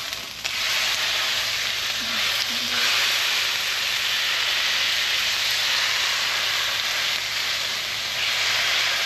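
Shaved beef sizzling loudly on a hot Blackstone flat-top griddle greased with oil and butter, as handfuls of raw meat are laid down with tongs. The sizzle is steady, with a brief dip right at the start.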